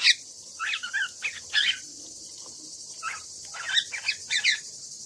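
Cockatiel chirping: quick, shifting chirps and whistles in two bouts, about a second in and again past three seconds.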